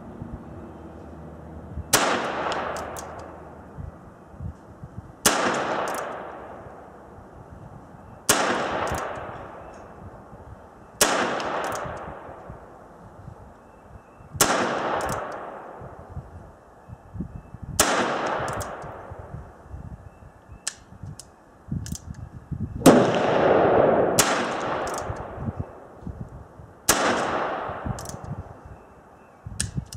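H&R 949 .22 rimfire revolver fired single action, about nine shots spaced roughly three seconds apart, with two coming close together near the end. Each shot is a sharp crack with a fading tail, and faint clicks fall between some shots. The revolver has a newly fitted replacement mainspring, meant to cure light-strike misfires.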